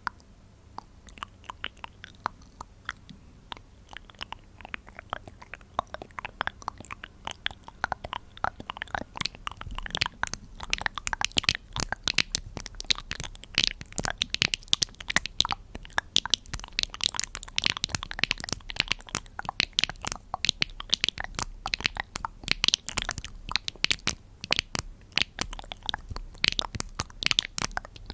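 Close-miked crunching and crackling, made of many small sharp clicks in quick succession. They start sparse and grow denser and louder about ten seconds in.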